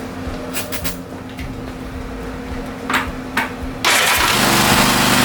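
Cub Cadet RZT S riding mower engine started on starting fluid: after a few short sharp sounds over a steady hum, it cranks and fires suddenly near the end and runs loudly. It runs only on the fluid, a sign of a fuel or carburettor problem.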